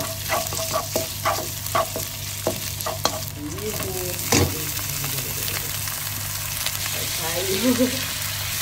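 Sliced meatballs and garlic sizzling in hot oil in a nonstick wok, with a plastic spatula tapping and scraping the pan about twice a second at first. A single loud knock comes about four seconds in as rice vermicelli goes into the wok, and the sizzle carries on steadily after it.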